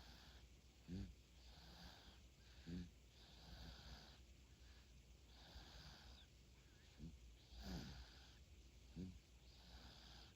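A three-month-old baby snoring softly: faint, regular breaths with a light hiss about every second and a half or two, and five short, low snorts on some of them.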